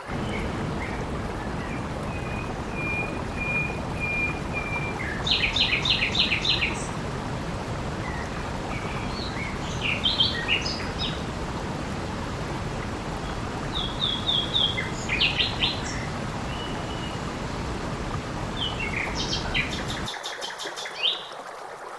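Small birds singing trills and chirps over a steady rush of running water. The low part of the water sound drops away near the end, leaving mostly birdsong.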